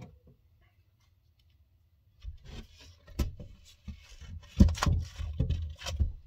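Wooden attic hatch cover being slid back over the opening from below. Rubbing and scraping wood with a series of knocks and heavy thumps starts about two seconds in, and the loudest thump comes about four and a half seconds in.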